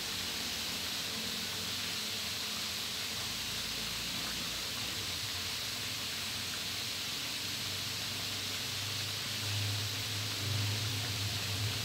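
Marinated chicken frames deep-frying in a wok of hot oil, giving a steady sizzling hiss. A low hum comes in for the last few seconds.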